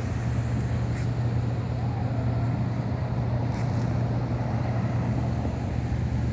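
Diesel locomotive engine idling, a steady low hum with a faint click or two.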